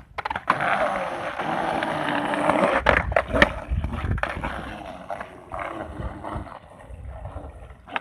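Skateboard wheels rolling over grooved concrete, a loud rumble for the first few seconds with several sharp clacks of the board about three seconds in, then a weaker rolling sound.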